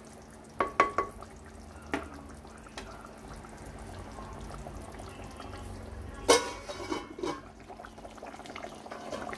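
Fish curry simmering in a pot with a faint liquid bubbling. A spoon clicks lightly against the pot a few times in the first two seconds, and there is one sharp clatter about six seconds in, followed by two softer knocks.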